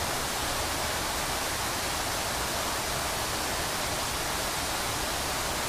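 Hot-spring water pouring and flowing inside a small cave grotto: a steady, even rush with no breaks.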